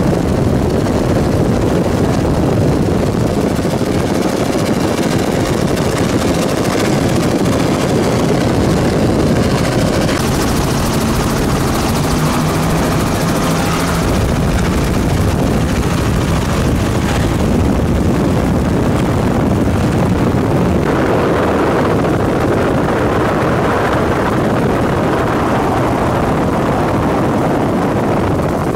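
Offshore performance powerboats running at speed: a loud, steady engine drone mixed with rushing water and wind. The tone shifts about halfway through and again later.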